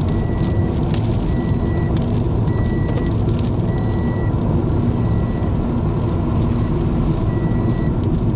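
Steady low rumble of a car's engine and road noise heard from inside the cabin, with a high electronic beep repeating about once a second.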